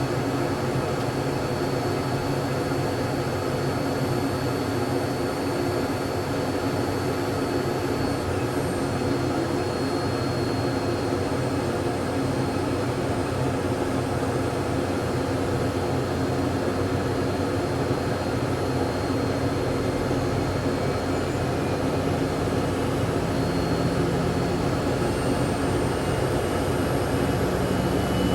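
Jet airliner's engines running steadily: a dense, even noise with a low hum and a thin high whine. A low tone in it steps up in pitch over the last several seconds.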